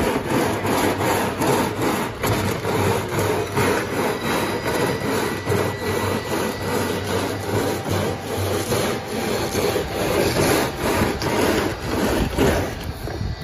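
A plastic trash can pushed and twisted over loose absorbent granules on a concrete floor, grinding and scraping in a steady run of rhythmic strokes.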